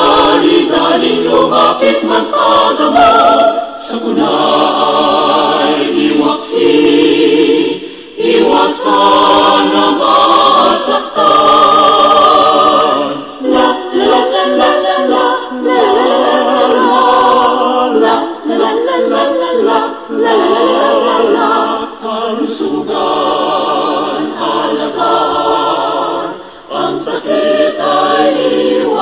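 Choir singing a hymn in Filipino, phrase after phrase with short breaks between, including a passage sung on "la la la" about halfway through.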